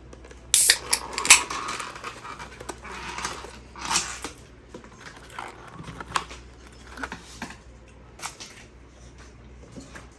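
Irregular clicks, taps and rustling of small objects being handled in a small room, loudest in the first couple of seconds and thinning out toward the end.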